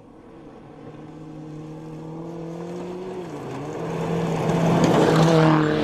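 Rally car engine approaching at speed on a gravel stage, getting steadily louder as it nears. The revs climb, drop once about three seconds in, then climb again.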